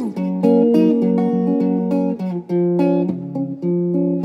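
Telecaster-style electric guitar played clean, picked notes and chords ringing over each other in a slow melody.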